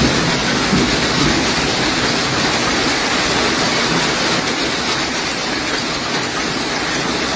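Downpour of a hailstorm, heard as a steady, dense hiss of falling precipitation.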